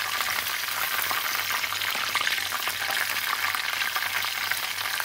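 Hot oil sizzling and crackling steadily in a cast iron karahi as chicken breast pieces fry in it, with a faint low hum underneath.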